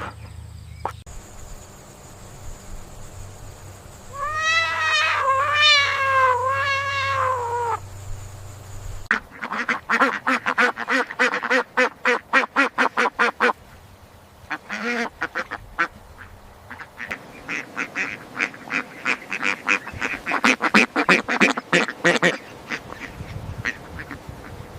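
Ducks quacking in rapid runs of short, harsh calls. Earlier, a short series of pitched calls that rise and fall.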